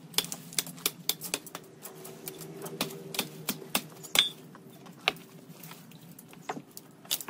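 Irregular sharp clicks and snaps, several a second, over a faint steady hum; the loudest snap comes about four seconds in.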